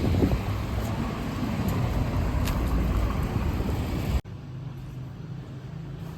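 Road traffic: a steady rumble of passing vehicles' engines and tyres that cuts off abruptly about four seconds in, leaving a much quieter background hum.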